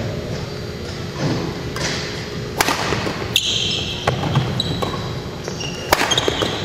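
Badminton rally: a few sharp racket strokes on the shuttlecock, with short high-pitched squeaks of court shoes on the gym floor between them, all ringing in a large hall.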